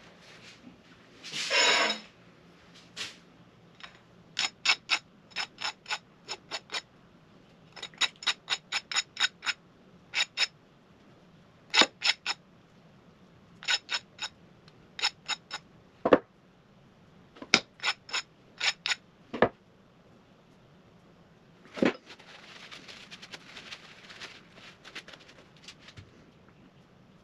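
Runs of sharp metallic clicks, several in quick succession in each run, like a ratcheting mechanism being worked. There is a short scrape near the start and a soft rustling hiss near the end.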